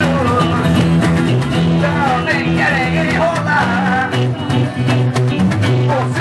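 Band playing the instrumental intro of a reggae-style song: a bass line of held notes under guitar, with a sliding lead melody over the top.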